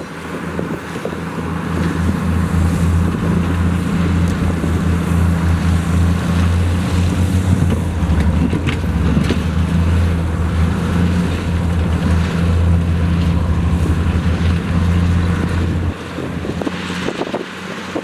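Heavy diesel engine of earthmoving equipment running hard and steady, building over the first couple of seconds and easing off about sixteen seconds in.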